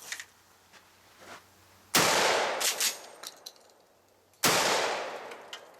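Two 12-gauge shotgun shots about two and a half seconds apart, each a sudden loud blast followed by a long fading echo.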